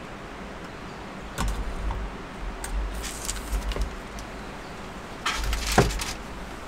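Objects being handled and set down: a few light clicks and a short rustle, then a louder clatter with a sharp knock near the end, over a steady background hiss.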